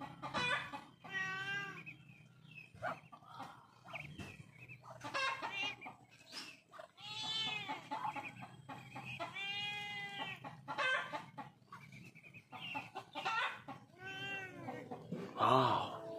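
Poultry calling: a run of separate drawn-out calls, some rising and falling in pitch, repeating every second or so.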